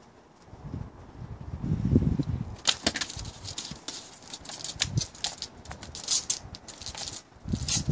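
A low rumble about two seconds in, then a rapid, irregular run of scratchy clicks and scrapes: a domestic cat's claws scrabbling on brick as it climbs the wall.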